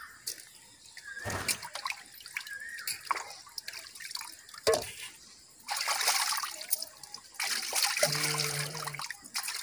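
Water splashing and sloshing as a steel pail is rinsed by hand in a concrete water trough, in two spells in the second half, after a couple of sharp metal knocks of the pail against the trough.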